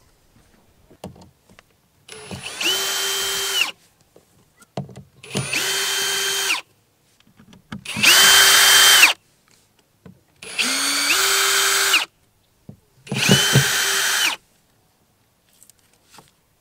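Ryobi cordless drill/driver run in five short bursts, each spinning up to a steady whine, holding, then winding down as the trigger is released.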